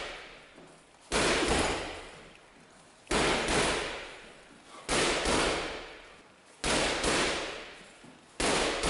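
Boxing gloves slamming into a hanging heavy bag in quick pairs of left hooks, head then body, five doubles about two seconds apart. Each double is two sharp thuds close together that die away with the room's echo.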